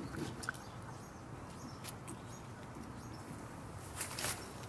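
Light rustling and crackling of dry leaves and mulch as a cat walks through a garden bed, with a louder crackle of foliage about four seconds in as it pushes into the plants.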